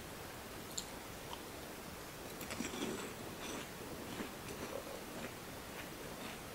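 Crisp crunching as a Lotte Pie no Mi, a flaky puff-pastry chocolate snack, is bitten into and chewed, with irregular crackles starting about two seconds in and easing off near the end, over a faint steady hiss.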